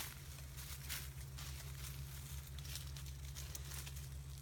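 Dry leaf litter rustling and crackling in short, irregular bursts over a steady low hum.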